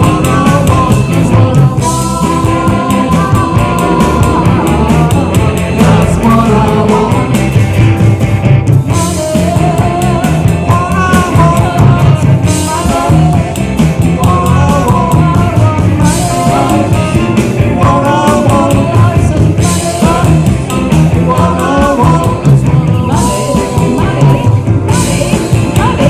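A live rock band playing a song at full volume, with drums and bass under a wavering lead melody line.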